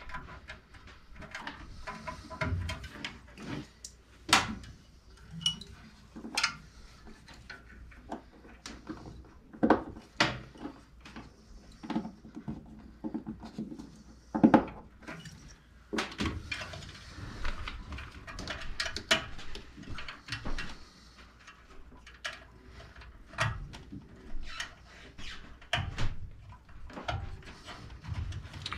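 Irregular clinks, taps and knocks of metal furnace parts and hand tools being handled.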